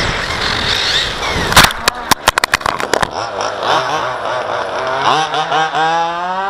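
Onboard sound of a radio-controlled 1/8-scale buggy running over rough tarmac with tyre and drivetrain noise. About a second and a half in comes a rapid series of sharp knocks as the car tumbles and comes to rest. Then a rising motor whine from another RC car accelerating.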